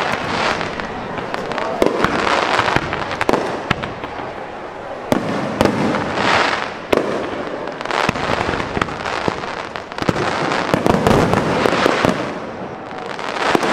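Aerial fireworks display: a dense run of bangs and crackles from bursting shells, over a rushing hiss that swells and fades every few seconds.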